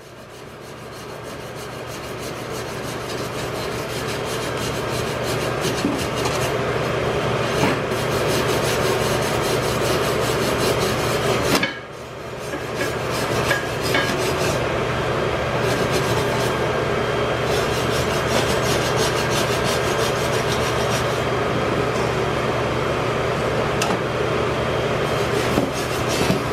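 MIG welding: a steady, dense arc crackle that fades in over the first few seconds, stops briefly about halfway through, then starts again.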